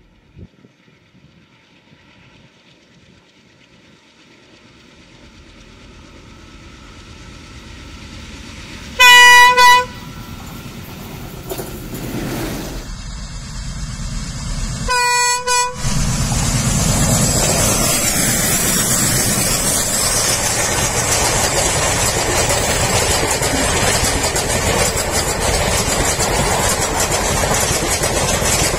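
Indian Railways diesel locomotive approaching, its sound growing steadily louder, then sounding its horn in two short blasts about nine seconds in and two more about fifteen seconds in. After that, the locomotive and its passenger coaches run close past with a loud, steady rumble of wheels on rails.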